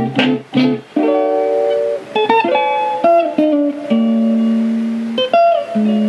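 Music with a plucked guitar melody playing back through Fantech Hellscream GS201 desktop speakers at a high volume; quick short notes at the start, then longer held notes.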